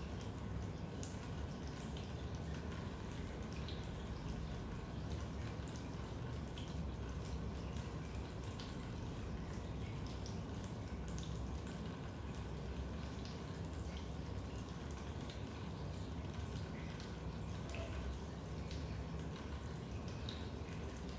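Raindrops dripping into a basement: many small, irregular drips over a steady low background rumble.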